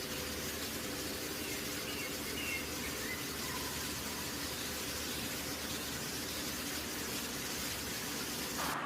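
Chicken drumsticks deep-frying in hot oil: a steady, even sizzle, with a few faint chirps about two seconds in. It cuts off abruptly to a duller hiss just before the end.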